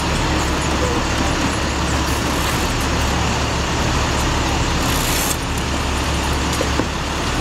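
Utility bucket truck's engine running steadily, with a brief hiss about five seconds in.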